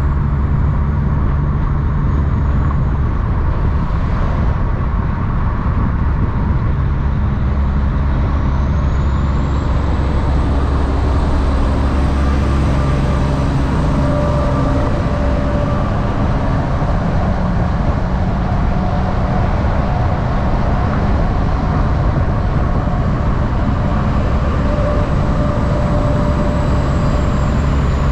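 Semi-truck diesel engine running loudly through loud exhaust pipes: a steady heavy rumble whose engine tones shift in pitch now and then.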